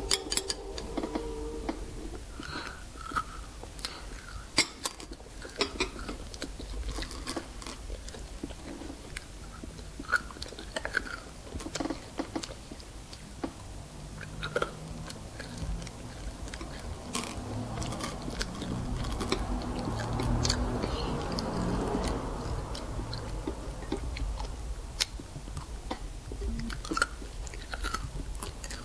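A child chewing and crunching candy-shelled M&M's milk chocolate candies, with scattered sharp clicks as pieces are picked out of ceramic bowls.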